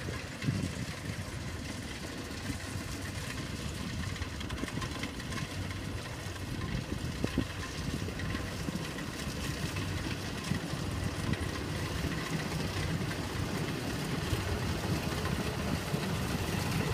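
Combine harvester's engine running steadily as the machine cuts rice, a low rumble that grows slowly louder as it comes closer.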